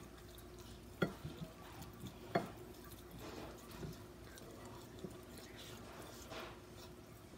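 Quiet handling sounds of fried chicken legs being torn apart by hand, with small crackles and rustles. Two sharp clicks come about a second and about two and a half seconds in.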